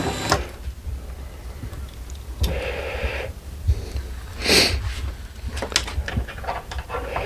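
Handling noise from work on the battery's internals: scattered light clicks and taps, with a short breathy whoosh about four and a half seconds in.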